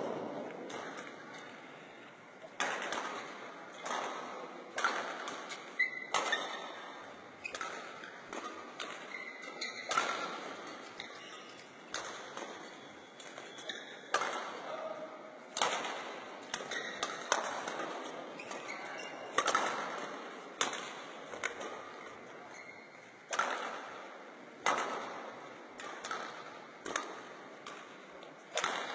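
Badminton rackets hitting a shuttlecock back and forth in a rally: sharp strikes about every one to one and a half seconds, each with a short echo in the hall.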